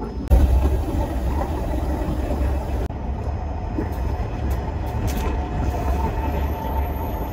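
Steady low rumble of a KTX high-speed train running, heard from inside the carriage vestibule.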